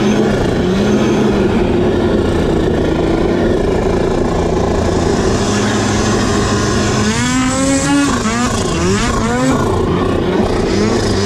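Snowmobile engine running under varying throttle, its pitch wavering, then revving up sharply about seven seconds in and easing back, with another brief rise near the end.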